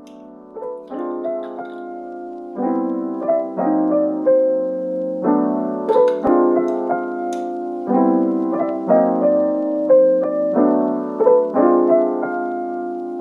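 Background music: gentle solo piano, sustained chords changing about every two and a half seconds with a simple melody above them.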